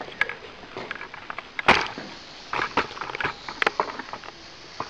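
A scatter of short, irregular clicks and knocks, the loudest a little under two seconds in.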